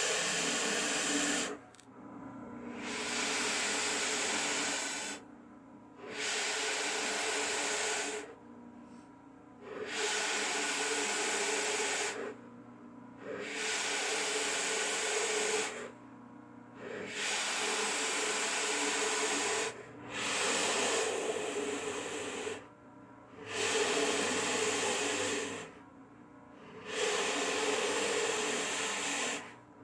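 Central Machinery drill press running at its lowest speed, a 1¼-inch Forstner bit boring into maple. There are about eight cuts of two to three seconds each, with short pauses between them where only the motor's low hum is left.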